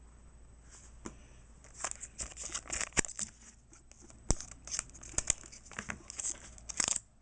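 Foil wrapper of a Pokémon trading-card booster pack crinkling and tearing as it is opened by hand. It is quiet at first, then from about two seconds in come busy rustles with sharp clicks and snaps.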